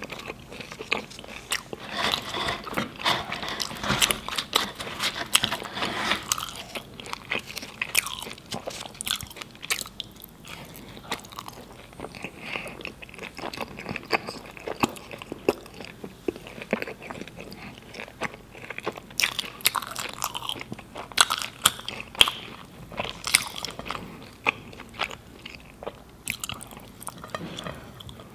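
Close-miked chewing of naan and biryani: crisp crunching bites and wet mouth clicks, thickest at the start, thinner through the middle and busy again past the middle.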